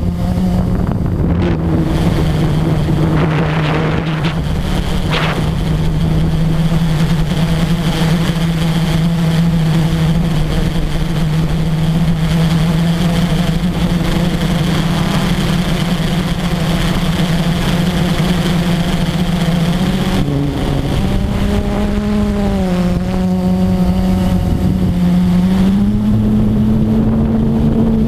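Blade 350 QX quadcopter's brushless motors and propellers humming steadily, heard from the GoPro mounted on the drone. Around three-quarters of the way through, the pitch dips, wavers and rises again as the motor speeds change.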